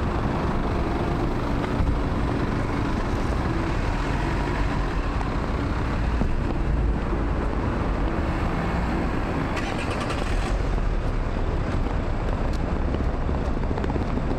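City street traffic: cars and other vehicles running along the road, a steady engine and tyre noise, with a brief rattle about ten seconds in.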